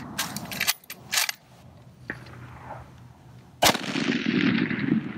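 A single shot of Malaysian L2A2 7.62x51mm ammunition from a bolt-action Israeli K98k Mauser converted to 7.62 NATO, about three and a half seconds in; its report rolls away for more than a second. Before it come a few sharp metallic clicks of the bolt being worked to chamber the round.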